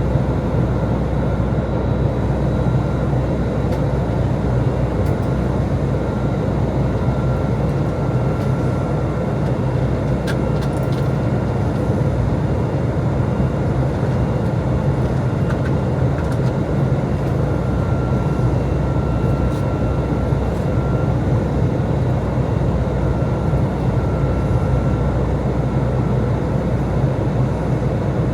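Steady cabin noise inside an Airbus A320 in the climb: airflow and its IAE V2527-A5 engines at reduced climb thrust, a deep even rumble with a faint high hum that comes and goes.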